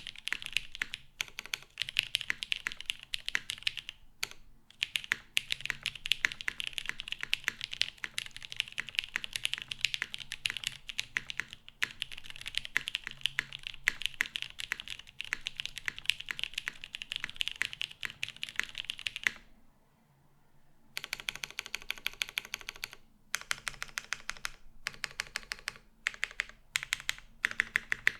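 Fast, continuous typing on a Salamander TKL custom mechanical keyboard with lubed JWK Cotton Candy linear switches on a PBT plate, GMK keycaps and no foam. The keys clack in rapid runs, with one pause of about a second and a half about two-thirds of the way through.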